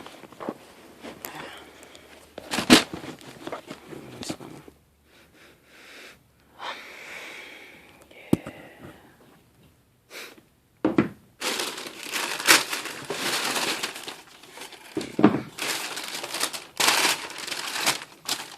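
Packaging wrap crinkling and rustling as a new pair of sneakers is unwrapped from its box. The first part has scattered rustles with a few sharp snaps. After a short pause about ten seconds in, the crinkling becomes dense and continuous.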